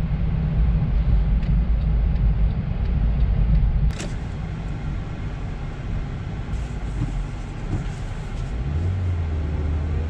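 Honda Fit driving, heard from inside the cabin: steady engine and road rumble. About four seconds in it drops to a quieter low rumble after a click, and a steady low hum comes in near the end as the car pulls up and stops.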